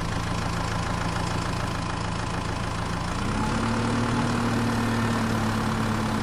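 Small DC electric motor running steadily, spinning the miniature flour mill through its belt drive. Its hum rises slightly in pitch about three seconds in.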